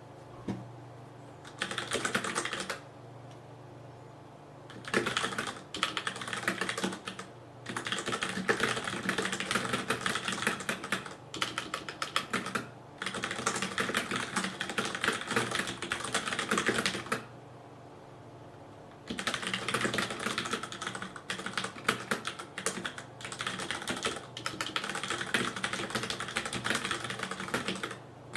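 Fast typing on a Ducky DK9800 G2 mechanical keyboard with Cherry MX Brown switches, the keys bottomed out on nearly every stroke. Rapid runs of keystrokes are broken by a few pauses of one to two seconds.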